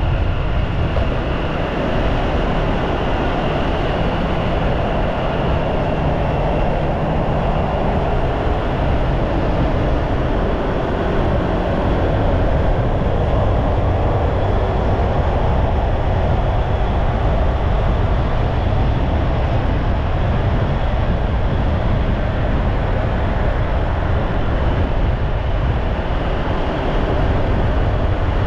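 Steady low rumble of vehicle driving noise, engine and tyre noise on the road, with no siren.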